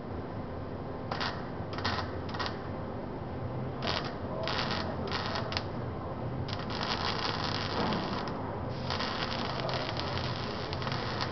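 Electric arc welding on a car's sheet-metal underbody, a crackling sizzle. It comes first as a few short bursts of tack welds, then as two longer continuous runs with a brief break between them.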